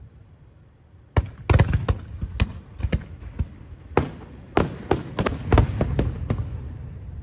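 Aerial fireworks shells bursting in the display's finale: a rapid string of sharp bangs, well over a dozen, starting about a second in and dying away near the end, over a low rumble.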